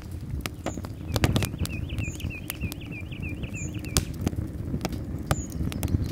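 Wood fire crackling and popping in a small metal box stove, sharp irregular snaps over a steady low rumble. A bird repeats a short call about four times a second from about one to four seconds in.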